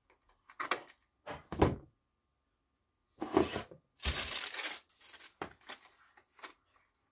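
A shipping package being torn open by hand: a few sharp rips, the longest and loudest about four seconds in, followed by smaller crinkles of the packaging.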